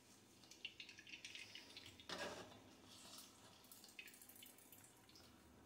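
Faint dripping and trickling of water squeezed by hand out of boiled soya chunks through a steel mesh strainer, with a slightly louder patch about two seconds in.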